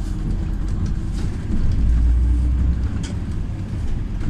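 Cabin noise inside a LiAZ 5292.67 city bus: its YaMZ-53624 compressed-natural-gas engine and running gear make a steady low rumble that swells louder about two seconds in, with a few light clicks and rattles.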